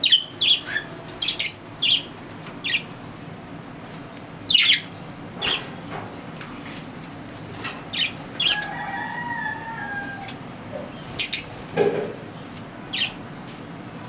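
Budgerigars chirping: a dozen or so short, sharp high calls at irregular intervals, with a brief warbling call about nine seconds in, over a steady low hum.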